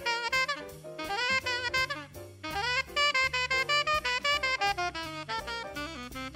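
Tenor saxophone playing quick, flowing jazz phrases, with short breaks between runs, over a backing of bass and drums.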